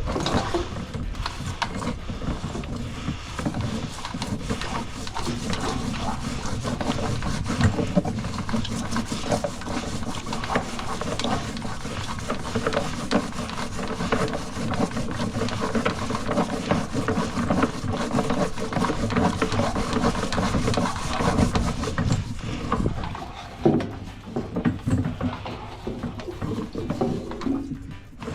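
Drain inspection camera's push rod being fed down a sewer pipe, rattling and scraping with many irregular knocks; it quietens near the end.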